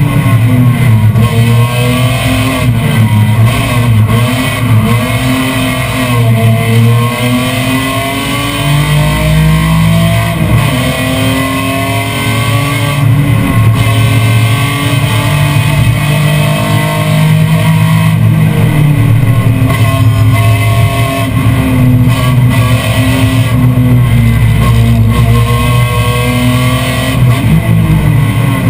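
BMW M3 race car's engine heard from inside the stripped cabin, revs rising and falling repeatedly as it accelerates, shifts and brakes through the bends, with guitar music mixed in.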